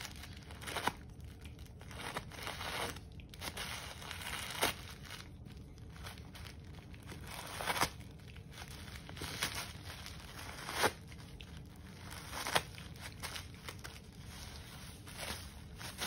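A cat tearing and crumpling a tissue-paper gift wrapping: an uneven crinkling broken by about five sharper rips.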